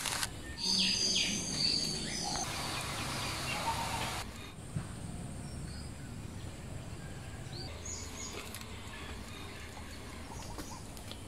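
Small birds chirping over a steady outdoor background. For about the first four seconds a sizzling hiss from rice stir-frying in a clay pot runs under the chirps, then stops abruptly, leaving quieter ambience with a few more chirps later on.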